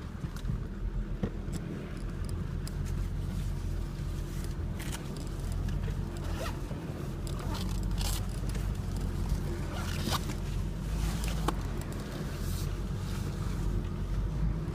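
Toyota Land Cruiser HDJ80's turbo-diesel straight-six running at low revs, heard from inside the cabin as the truck crawls over a rough track. Irregular knocks, creaks and scrapes from the body and suspension come and go throughout.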